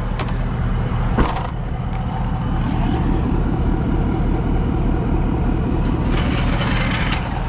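Air compressor running steadily with a fast, even pulse as a tire is inflated, over an engine idling. Two sharp clicks come in the first second or so, and a hiss of air starts near the end.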